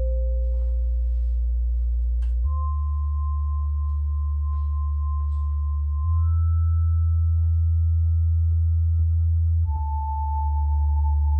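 Eurorack modular synthesizer playing clear, pure sustained tones over a low bass drone. The tone steps to a new pitch about every three and a half seconds, with the drone shifting at each step.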